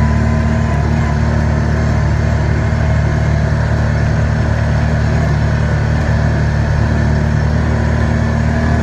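ATV engine running at a steady cruising speed, heard from on board as a constant low drone.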